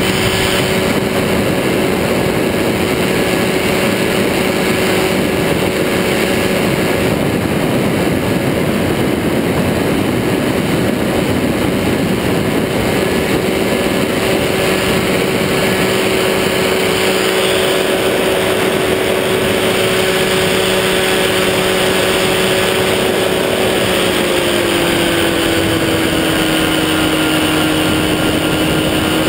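Powered parachute's engine and pusher propeller running steadily in flight, heard from the seat with air rushing past. The engine note drops slightly about six seconds before the end.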